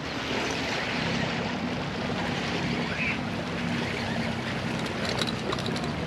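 Small waves washing against granite jetty boulders, with wind on the microphone and a faint low steady drone underneath.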